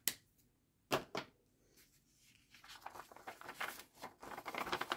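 A few sharp clicks, then a folded sheet of drawing paper rustling and crackling as it is picked up and handled, getting louder near the end.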